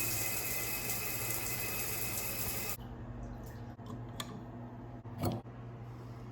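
Water running steadily from a tap, then shut off abruptly about three seconds in. A low steady hum remains, with a few light clicks and a short knock near the end.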